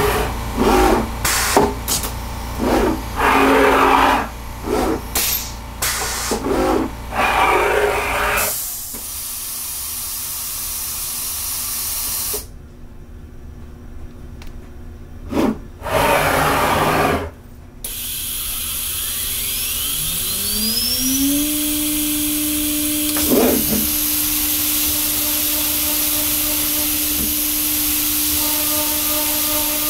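CNC router spindle, driven by a VFD, spinning up about two-thirds of the way in: a rising whine that levels off into a steady tone at its 18,000 rpm threadmilling speed, under a steady hiss of air from the nozzle aimed at the cutter. Before that, a run of short, loud bursts of noise over a low hum that stops about a third of the way in.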